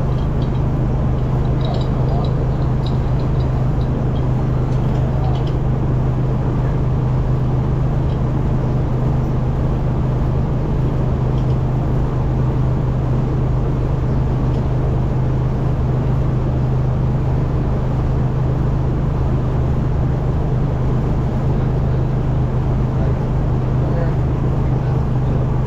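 Steady, loud machine hum with a low drone that does not change, from barn machinery running.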